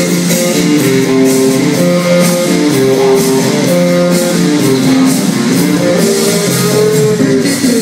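Loud dance music from a DJ's sound system: a busy plucked-guitar melody of quick, repeating notes over a steady, even percussion beat, with no singing.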